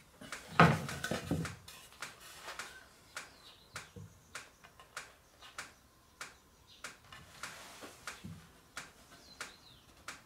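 Wooden boards knocked and shifted against each other on a workbench, loudest as a board is set down about half a second in, with a steady run of light ticks, about two a second, throughout.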